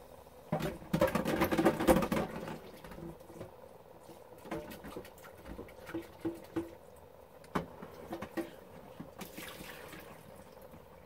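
Water splashing as a container is rinsed out to wash the sediment from its bottom. There is a loud splash of about a second and a half near the start, then scattered knocks and clinks, and a short swish near the end.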